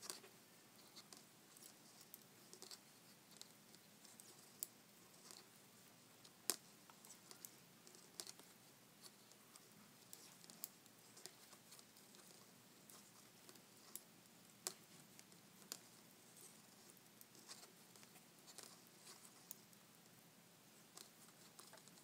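Near silence with faint, irregular clicks of metal knitting needles tapping together as stitches are purled by hand; a few sharper ticks stand out.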